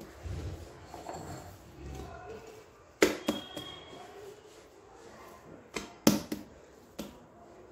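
Bread dough being kneaded by hand on a worktop: soft dull thuds at first, then a few sharp slaps of hand and dough against the surface about three seconds in and again around six seconds.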